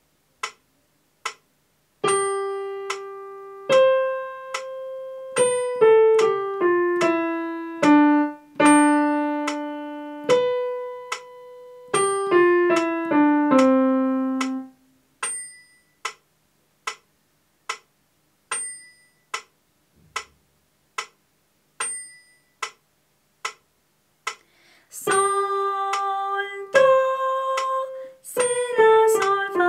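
Keyboard in a piano voice playing a short single-note melody, one note at a time, over a steady metronome ticking about once every 0.7 seconds with an accented tick every fourth beat. The melody stops about halfway through and the metronome ticks alone for about ten seconds, the gap left for the student to sing the melody back. The melody starts again near the end.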